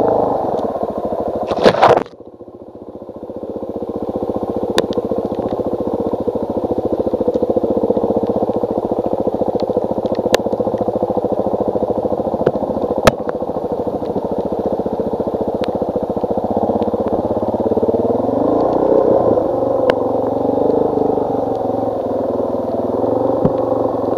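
Suzuki DR-Z400S's single-cylinder four-stroke engine running as the bike is ridden over rough trail, with scattered sharp rattles. A short loud noise comes just before the engine sound drops away suddenly about two seconds in and builds back over the next two seconds; the revs rise and fall again near the end.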